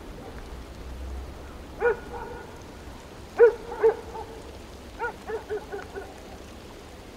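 A dog barking: a single bark, then two, then a quick run of four, over a steady hiss.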